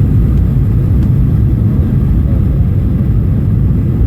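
Steady loud rumble of a Ryanair Boeing 737-800 heard from inside the cabin during landing.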